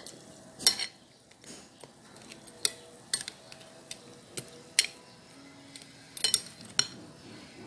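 Metal spoon clinking against a glass bowl while stirring raw shrimp in Sprite: several sharp clinks, a second or two apart.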